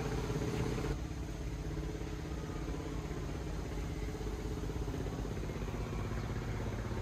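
Steady low mechanical hum, like a motor or engine running continuously, with a slight change in its tone about a second in.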